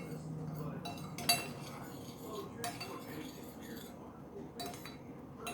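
A utensil clinking against a metal saucepan of boiling soy-sugar glaze: about five separate ringing clinks, the loudest about a second in.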